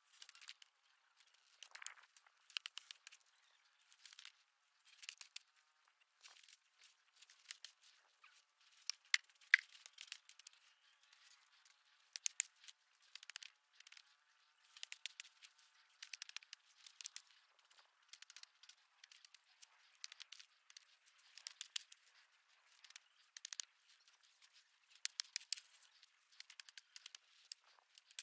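Irregular crackling and tearing as weeds are pulled up by hand, roots ripping out of dry soil, in quick scattered bursts of sharp clicks.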